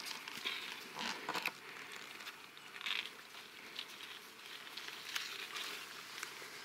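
Faint rustling and scattered soft crackles of dry grass and brush as a person moves slowly through it, with a few sharper ticks about a second in and near the middle.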